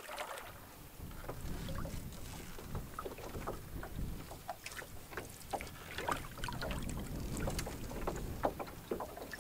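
Canoe being paddled slowly: water dripping and splashing off the paddle and along the hull in many small, irregular clicks, over a low rumble.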